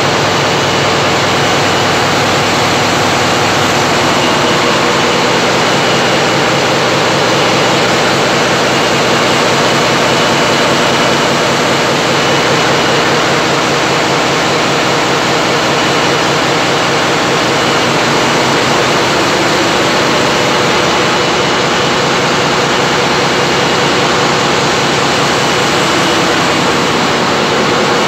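Loud, steady drone of large diesel engines running in a power-plant engine room, a dense unbroken engine noise with a deep hum that does not change.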